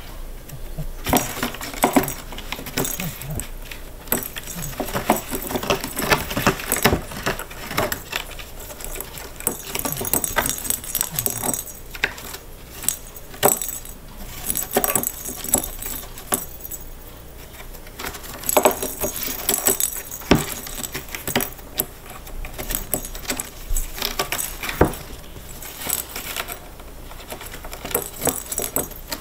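Cats batting the play balls around inside a cardboard scratcher toy: irregular clattering and rattling clicks, with stretches of claws scratching the cardboard.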